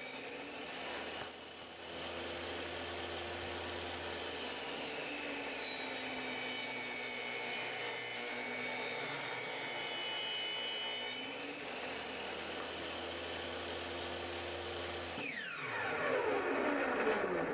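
Portable table saw running and ripping a wooden board into strips. Near the end its pitch falls away as the saw winds down.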